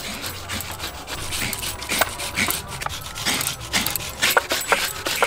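Quick, irregular scraping strokes of food grated by hand: coconut flesh scraped out of a halved coconut on a blade scraper, and onion rubbed on a metal box grater.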